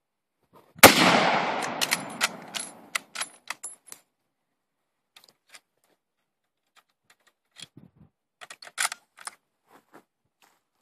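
A single shot from a WWII .303 bolt-action rifle about a second in, echoing and dying away over about two and a half seconds. Scattered sharp clicks follow, and a short cluster of metallic clicks and knocks near the end as the rifle is handled.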